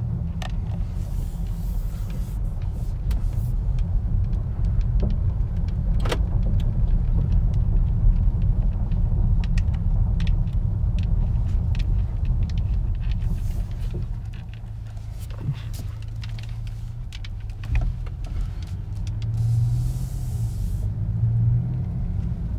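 In-cabin sound of a 2018 Honda Accord's 2.0 L turbocharged four-cylinder and road rumble while driving slowly, with scattered light clicks. The engine note rises for a couple of seconds near the end.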